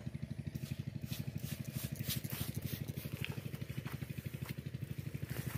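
A small engine running steadily in the background, an even chugging of about ten beats a second.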